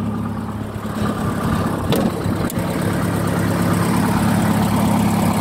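1958 Bedford CA minibus engine idling steadily, with two brief clicks about two seconds in.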